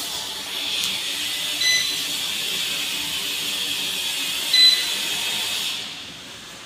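Orient kitchen chimney hood's blower running with a steady airy rush. Its touch panel beeps twice as buttons are pressed, and the fan noise drops away near the end.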